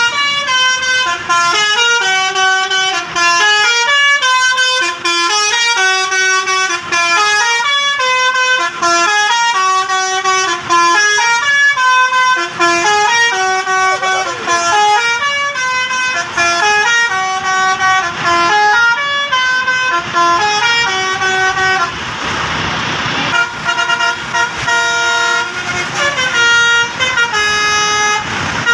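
A bus's telolet multi-tone air horn playing a tune: a long, unbroken run of short horn notes stepping up and down several times a second, with a brief noisy rush about three-quarters of the way through.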